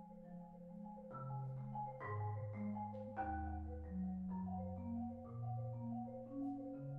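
Marimba music: a slow bass line of rolled low notes drops to its deepest note about three seconds in, then climbs step by step. Shorter higher notes move above it.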